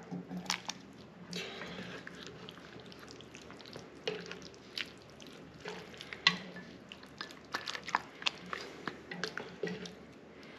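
Spoon scooping baked beans out of a cast-iron Dutch oven into a ceramic mug: scattered light clicks and taps of the spoon against pot and mug, with soft wet plops of the beans.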